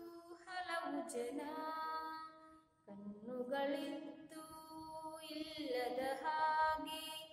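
A woman singing a Kannada song solo and unaccompanied, in long drawn-out notes. It comes as two phrases, with a short breath about three seconds in.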